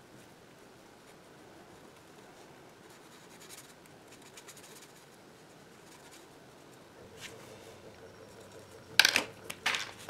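Faint scratching of a water brush on sketchbook paper, then two sharp plastic clacks near the end as the pens are handled: the water brush set down and a brush pen picked up.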